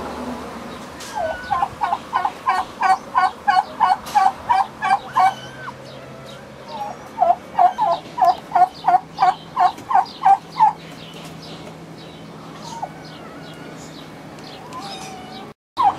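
Domestic fowl calling in two quick runs of short, evenly repeated notes, about three a second, with a pause of a couple of seconds between runs.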